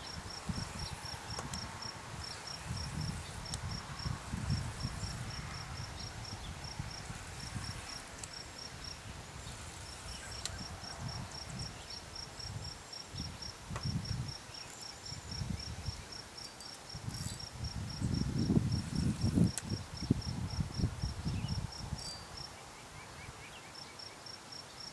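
An insect chirping in a steady, rapid series of short high pulses, about four or five a second, with two brief pauses. Under it, wind rumbles on the microphone in gusts, strongest a little past the middle.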